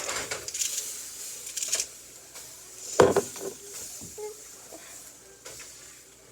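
Kitchen utensils knocking against a frying pan and dishes while eggs fry, with scattered knocks and clinks, the sharpest about three seconds in.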